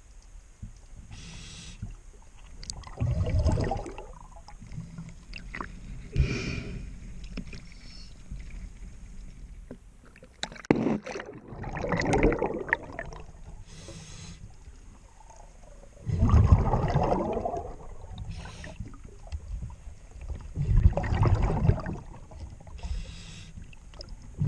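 Scuba diver breathing underwater through a regulator: a short hiss on each inhale alternating with a louder rush of exhaled bubbles, repeating every four to five seconds. A sharp click is heard about eleven seconds in.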